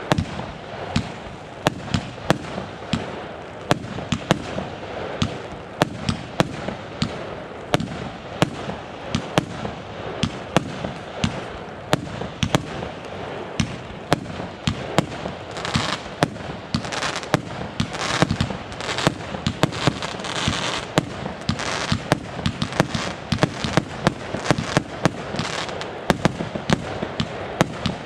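Consumer fireworks going off: a long run of sharp bangs in quick, irregular succession, with stretches of hissing crackle about halfway through.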